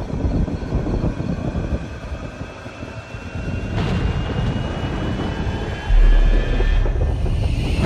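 A low rumbling noise with faint, slowly rising tones above it, and a sudden heavy low boom about six seconds in.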